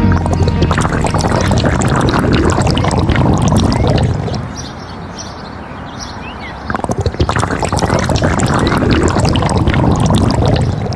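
Water pouring and splashing heavily, easing off for a couple of seconds midway, then coming back.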